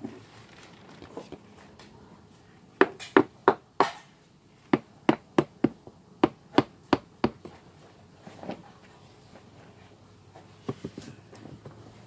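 A hand tool striking sharply and repeatedly, about three blows a second: four blows, a short pause, then eight more. A single softer knock follows.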